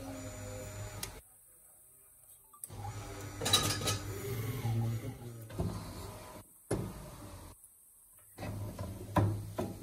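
Metallic knocks and clicks as a spin-dryer motor's steel housing and end cap are fitted together by hand, over a steady low hum, with two short dropouts to silence.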